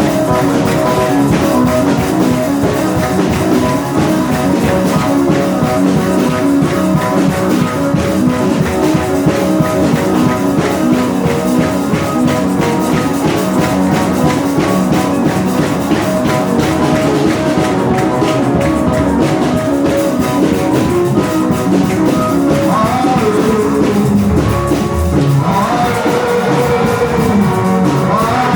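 Loud music with a steady drum-kit beat and guitar, and a singing voice in places.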